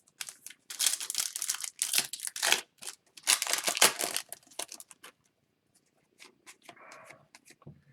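A foil trading-card pack being torn open and its wrapper crinkled, in two rustling bouts, followed by a few light clicks and rustles from handling the cards.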